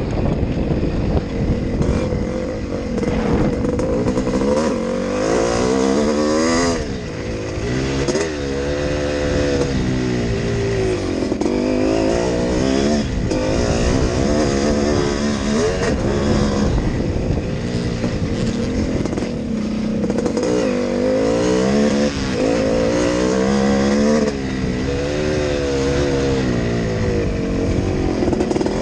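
Yamaha YZ465G's two-stroke single-cylinder engine under hard riding, its pitch climbing and dropping again and again as the rider opens the throttle, shifts and backs off.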